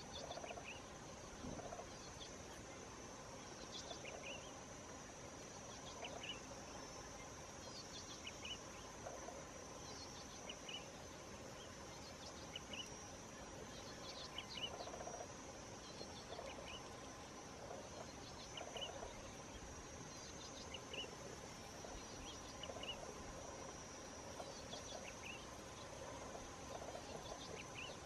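Insect ambience: a steady high-pitched insect drone, with short chirping calls repeating every second or two.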